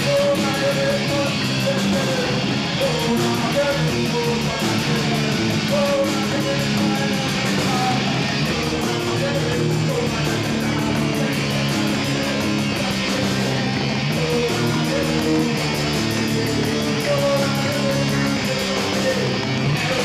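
Live rock band playing with electric guitars over bass and drums, loud and continuous.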